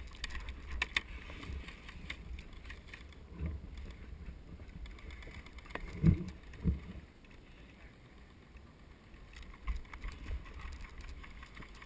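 Handling and movement noise from a body-worn camera: rustling and knocking, low wind buffeting on the microphone, a few sharp clicks near the start and two heavy low thumps about six seconds in.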